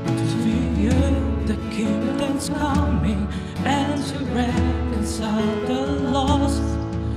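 Live worship band playing a contemporary worship song: a male lead voice with female backing singers over keyboard, acoustic guitar and electronic drums.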